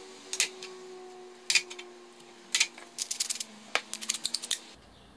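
Wooden pepper mill twisted by hand to grind pepper, a few separate clicks followed by a quick run of ratcheting clicks about three seconds in.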